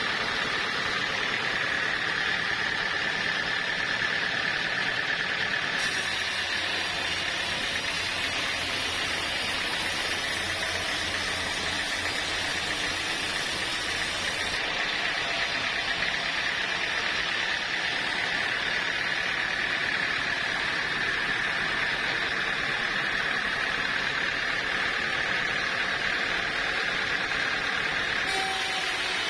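Sawmill saw running steadily: an even mechanical noise with a constant high whine. A layer of extra hiss and low hum switches on and off abruptly twice.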